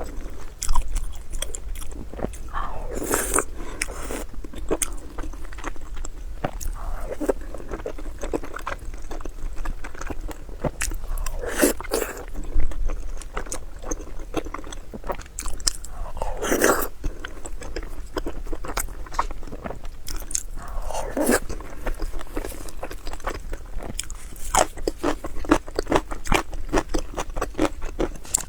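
Close-miked eating: a person biting and chewing food, with quick wet mouth clicks throughout and four longer, louder mouth noises spread through it.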